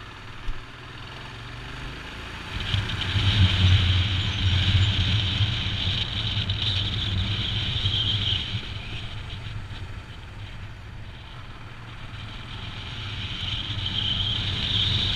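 Royal Enfield Himalayan's single-cylinder engine running on the move, getting much louder from about three seconds in, easing off after about eight seconds and building again near the end.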